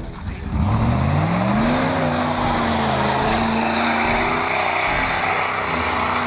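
Jeep Grand Cherokee ZJ engine revving up over about a second and a half, then held at high revs as the 4x4 drives hard through deep snow.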